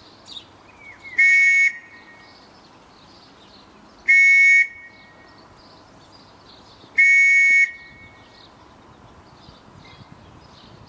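A whistle blown in three short, shrill blasts a few seconds apart, each a steady tone about half a second long: the signal marking the moment the troops went over the top at the start of the Battle of the Somme.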